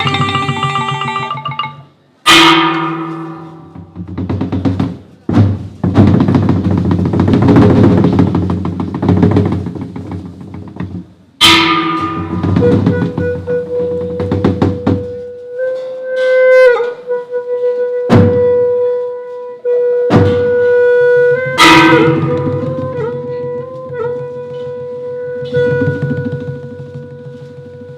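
Instrumental music with drumming. Three loud ringing strikes land about 2, 11 and 21 seconds in, and from about 12 seconds in a long held note sounds over the drums.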